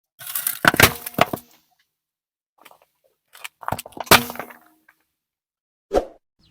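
Objects cracking and snapping under a car tyre as it rolls over them, in three separate bursts with dead silence between: a cluster of sharp cracks at the start, another from about three and a half to four and a half seconds in, and a single short crack near the end.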